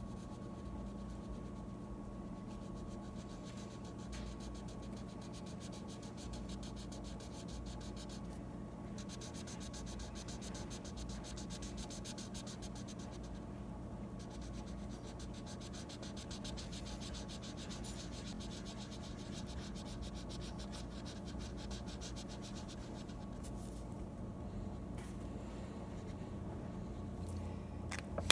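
Felt-tip marker scratching on paper in quick, continuous coloring strokes, over a steady low hum.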